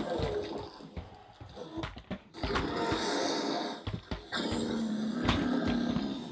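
A few sharp plastic knocks from toys being struck together, then a long low growling dinosaur roar sound effect.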